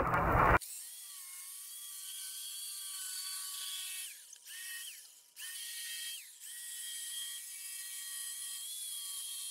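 Jigsaw cutting lengthwise along a 4-inch PVC pipe: a thin, high motor whine that wavers in pitch as the blade works. The saw stops briefly about four seconds in and starts again.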